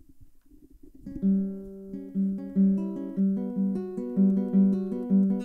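Instrumental intro of a rock song: a guitar plays single picked notes, about two to three a second, each left ringing under the next, with one low note coming back again and again. The notes start about a second in, after faint noise.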